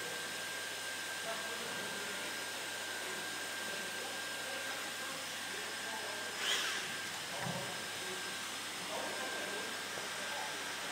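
Hot-air blower of a WELDY booster EX2/EX3 extrusion welder running: a steady airy hiss with a thin high whine. There is a brief louder rush about six and a half seconds in.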